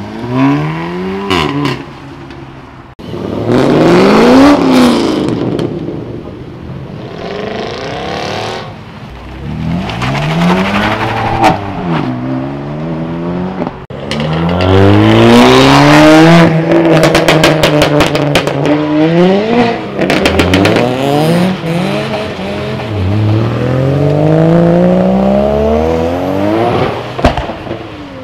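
A series of loud performance cars accelerating hard away one after another, cut together. Each engine revs up through the gears, its pitch climbing and then dropping back at every upshift. It opens with an Audi R8 Spyder and an Audi RS3 pulling off together.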